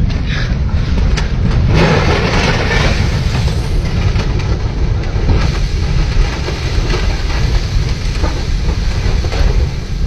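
Mudslide (debris flow) of mud, water and rocks rushing past: a loud, steady low rumble, with a harsher rushing swell about two to three seconds in.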